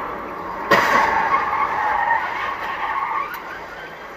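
A car collision: a sudden crash about a second in, with tyre skid noise around it that fades over the next couple of seconds.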